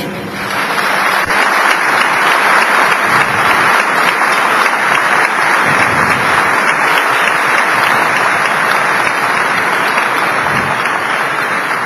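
Audience applauding: dense, steady clapping that swells over the first second or so and then holds.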